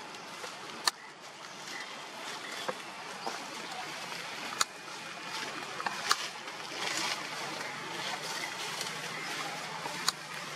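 Outdoor ambient noise: a steady rustling hiss with a few sharp clicks scattered through it.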